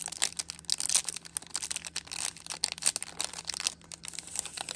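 Cellophane cigar sleeve crinkling as it is opened and pulled off a cigar: a dense run of rapid, sharp crackles.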